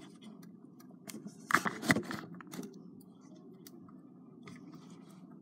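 Plastic pump of a body-lotion bottle being handled and pressed: a quick cluster of clicks and scrapes about a second and a half in, then a few faint ticks.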